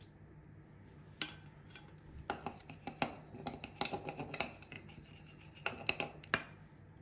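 Kitchen tongs scraping and tapping inside a glass mixing bowl of chicken marinade: a run of irregular clicks and scrapes.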